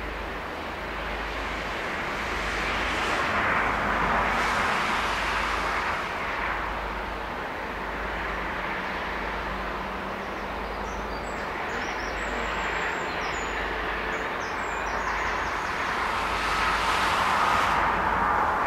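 Road traffic passing close by: the tyre and engine noise of cars swells and fades, with one pass about four seconds in and another near the end.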